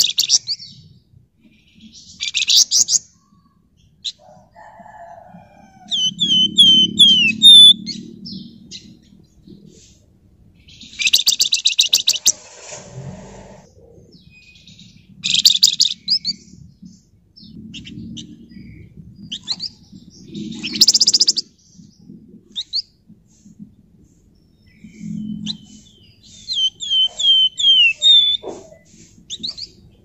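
Caged flamboyan songbird singing in bouts: short, dense, rapid high trills every few seconds and, twice, a run of four or five quick down-slurred whistled notes. Low, muffled flutters come between the phrases.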